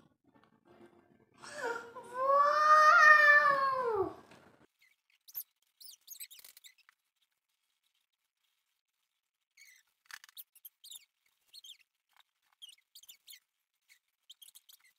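One long wailing cry of about three seconds, rising and then falling in pitch, followed by faint scattered clicks.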